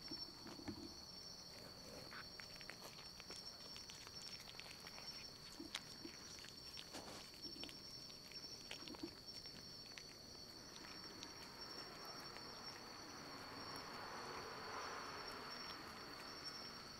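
Faint room sound: a steady high-pitched whine with scattered light taps and clicks, and a soft rustling haze that swells in the second half.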